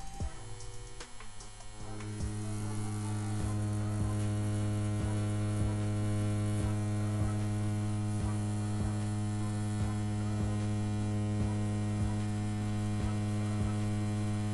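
CNC P6 rotary tattoo pen machine running at 8 volts with an 18-round liner needle, a steady even motor hum that comes up about two seconds in and cuts off at the end. It is pushing the big liner through the practice skin without trouble.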